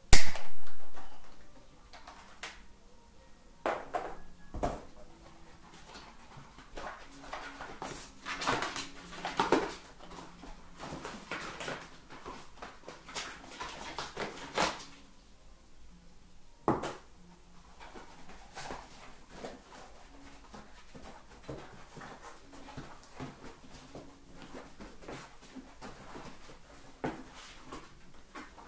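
Handling noise from a Maxxis Minion DHF mountain-bike tire being turned over and worked by hand: scattered rustling, clicks and knocks, busiest in the middle. A single loud knock comes right at the start.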